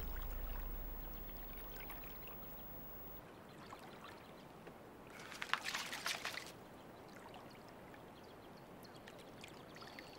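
Shallow water splashing and sloshing as lions wade and struggle with a roan antelope they have caught in it. There is a short burst of splashing about five to six seconds in.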